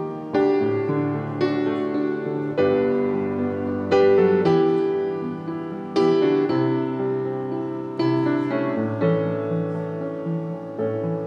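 Fritz Dobbert grand piano played solo: chords struck every second or two and left to ring and die away.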